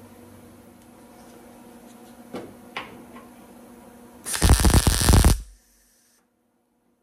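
A few faint clicks, then about four seconds in a MIG welder arcs with a loud crackle for about a second. This is a tack weld fusing a thinned nut onto a broken fender bolt stud so that the stud can be turned out with a wrench.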